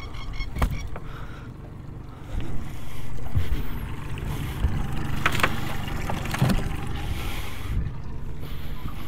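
A few sharp knocks on an aluminium boat's deck and hull over a steady low rumble, which gets louder about two seconds in.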